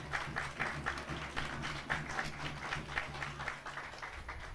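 Spectators clapping in a steady rhythm, about four claps a second, over a low steady hum; the clapping thins out near the end.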